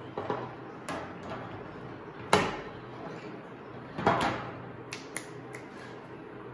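Handling knocks of a plastic power strip and its plug against a wire dish drainer and wooden tabletop: a few scattered knocks, the two loudest about two and four seconds in, then small clicks near the end.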